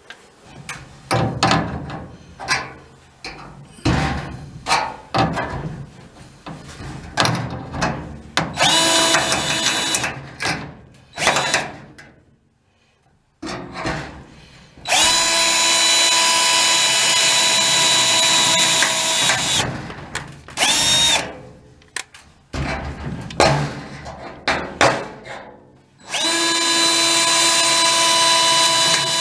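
Power drill running in steady pulls of a few seconds each, the longest about five seconds, with a short blip between them. Knocks and clicks of handling parts come before the first run.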